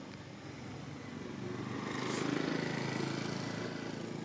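Engine of a passing motor vehicle, swelling up about two seconds in and then fading.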